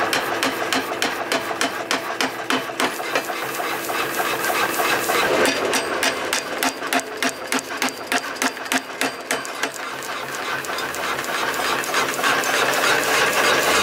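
Power hammer pounding a red-hot steel axe blank in rapid, even blows, about five or six a second, with the machine running under them; the blows become less distinct near the end.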